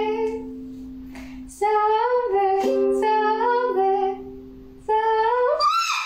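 A woman singing to a plucked ukulele, in held, sung phrases over a steady ringing note. There is a lull about a second in, and the sound cuts off abruptly near the end.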